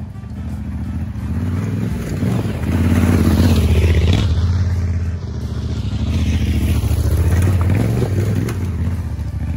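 Yamaha Ténéré 700's parallel-twin engine as the bike is ridden slowly down a rough dirt trail towards and past the listener. It grows louder over the first few seconds, eases off briefly about halfway through, pulls again, then begins to fade near the end.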